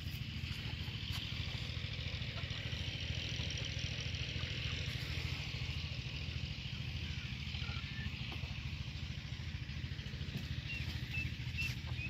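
A small engine idling steadily with an even low pulse, under a steady high hiss. A few faint short chirps come near the end.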